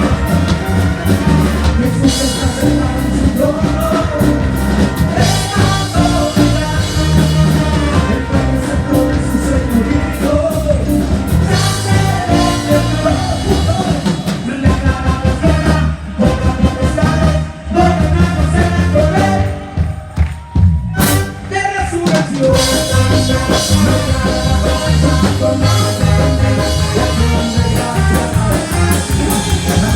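Live band music with a singer: a drum and bass beat under a lead voice. The band breaks off briefly a little past halfway, then comes back in.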